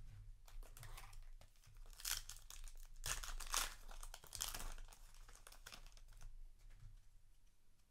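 Foil Yu-Gi-Oh! booster pack wrapper crinkling and being torn open, a run of rustles loudest from about two to five seconds in.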